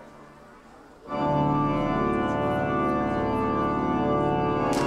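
Show soundtrack music: a quiet, fading tail gives way about a second in to a loud, sustained organ-like chord with a deep bass underneath. Sharp percussive hits begin right at the end.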